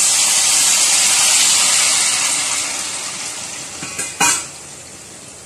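Hot oil poured into a pot of chicken simmering in tomato and yogurt sauce, sizzling loudly as it hits and dying down over a few seconds. Two short knocks come about four seconds in.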